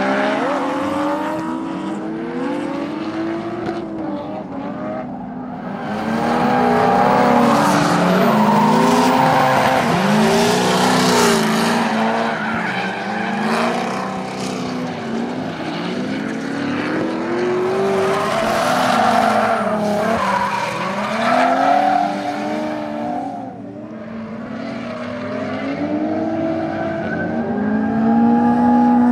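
Drift car engines revving up and down again and again, over the hiss and squeal of tyres sliding sideways on the track.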